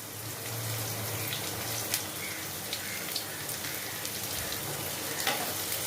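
Chopped carrots and garlic sizzling in hot oil in a pan, a steady crackling hiss with scattered sharp pops.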